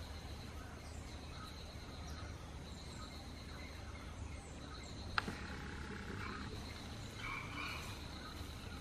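Forest ambience of wild animals calling in the trees: a thin high call that keeps breaking off and starting again, and a few shorter calls in the second half. A single sharp click comes about five seconds in.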